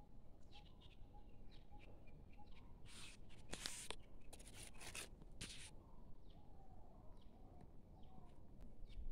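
Faint bird chirps in a quiet garden, with a run of short scratching and rustling noises about three to six seconds in.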